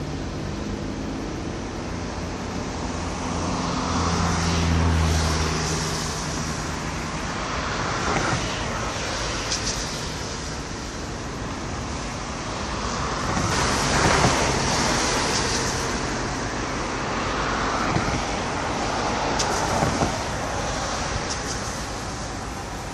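Road traffic passing: several vehicles go by one after another, each swelling and fading, one with a low engine hum about five seconds in.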